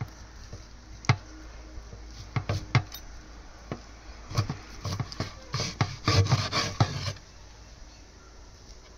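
Kitchen utensils knocking and clattering: a few separate knocks, then a busier run of clatter from about four to seven seconds in.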